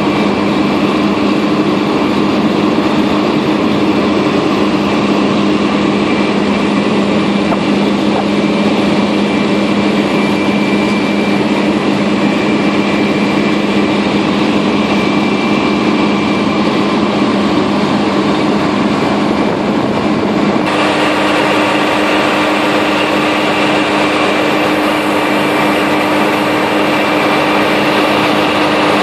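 ZJ50 drilling rig machinery running with a loud, steady engine-like hum. About two-thirds of the way through, its pitch steps up and the sound gets brighter.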